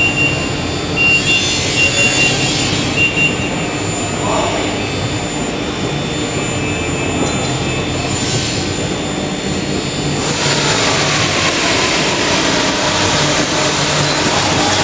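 A steady, loud mechanical drone, with a broken high beeping tone over it in the first few seconds. About ten seconds in, a hissing noise grows louder.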